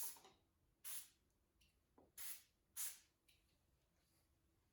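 Aerosol can of penetrating fluid sprayed in four short hissing bursts onto stuck bicycle handlebar fittings, to free seized parts.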